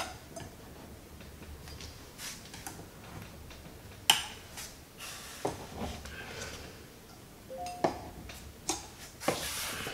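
A knife blade pressing down the metal retaining points on the back of a picture frame, giving scattered light clicks and small metal-on-metal taps, with a sharper click about four seconds in and a short scrape near the end.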